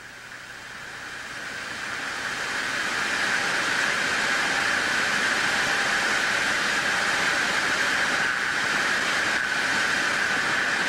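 Steady rushing hiss of radio static. It swells over the first few seconds, then holds loud and even.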